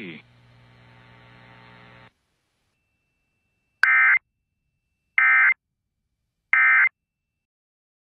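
Emergency Alert System end-of-message (EOM) burst: three short bursts of SAME digital data tones, each about a third of a second long and about 1.3 seconds apart, starting about four seconds in. Before them a faint low hum stops about two seconds in.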